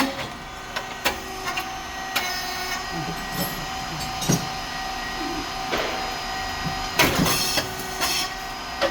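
SYP3080(G4) puffed rice cake machine running a production cycle, its hydraulic motor and pump giving a steady hum with light mechanical clicks. About seven seconds in there is a louder, short burst with a hiss as a batch of rice cakes is popped out of the heated moulds.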